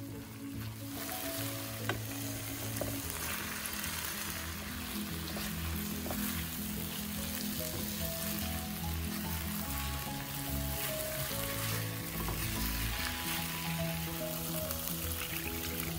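Curry paste and raw chicken pieces sizzling and frying in a nonstick pan, stirred with a silicone spatula; the sizzle swells about a second in and stays strong. Background music plays under it.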